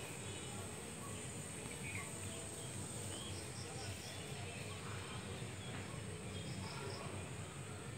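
Faint woodland ambience: a steady high insect drone with a few short, faint bird chirps, over a low rumble.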